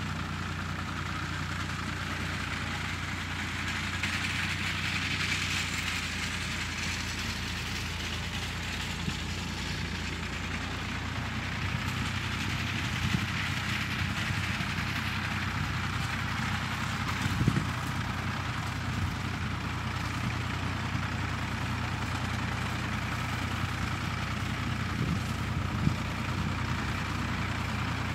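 An engine running steadily at idle, a low even hum, with a hiss that swells and fades twice and a few brief knocks.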